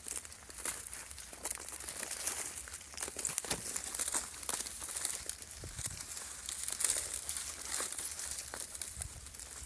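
Irregular crackling and rustling, like dry plant material being crumpled or torn, with many small sharp crackles.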